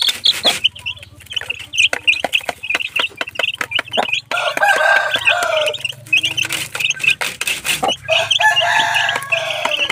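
Two-week-old upgraded native chicks peeping continuously in short high notes while pecking at feed in a plastic trough, with many sharp clicks. Twice, once about midway and once near the end, an adult chicken gives a longer, lower call of about a second.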